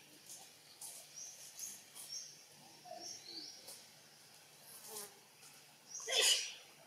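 Outdoor insect sounds, with short high chirps scattered through. A brief, louder noisy sound comes near the end.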